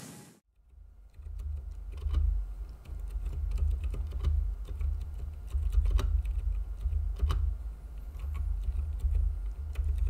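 Typing on a 60% mechanical keyboard fitted with Gazzew Boba U4 silent tactile switches and blank PBT keycaps: a quick, continuous run of muted keystrokes with a low thud under them, starting about a second in. A few strokes stand out louder than the rest.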